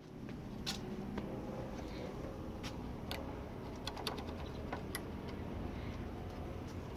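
Faint, scattered light clicks and taps, several close together about four seconds in, over a steady low background rumble.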